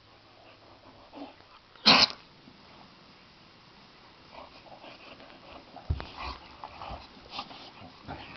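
Two boxer dogs play fighting: one short, loud vocal burst about two seconds in, then from about four seconds on a run of short, quieter scuffling and mouth noises with occasional teeth clacks.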